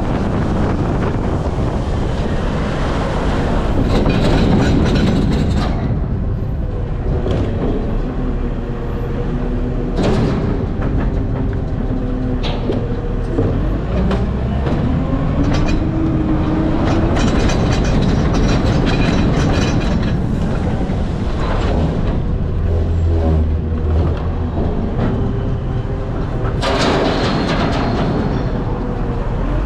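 Garbage truck running: a heavy engine drone, with a rising whine about halfway through and several clunks and knocks.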